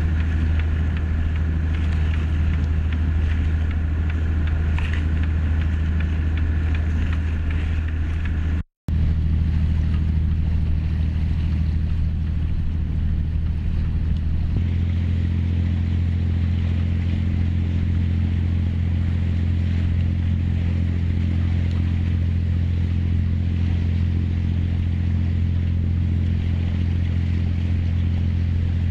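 Motorboat engine running with a steady low drone and even overtones. The sound drops out for an instant about nine seconds in and grows fuller about halfway through.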